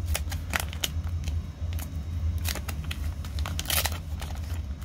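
Paper wrapper of a repacked trading-card pack being peeled and torn open by hand: irregular crackling and rustling, with a louder tear near the end, over a steady low hum.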